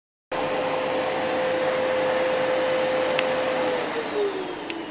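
Vacuum cleaner running, a loud rushing noise with a steady whine whose pitch sinks from about four seconds in, with a couple of faint clicks.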